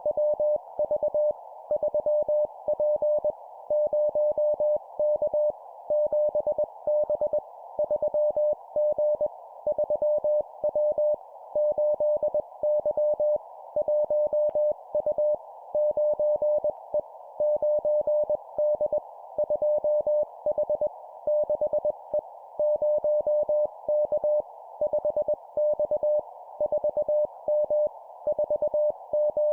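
Morse code (CW) tone keyed at 20 words per minute, sent as short two-character letter-and-number groups with brief pauses between them. A single beep pitch is heard over a steady band of hiss.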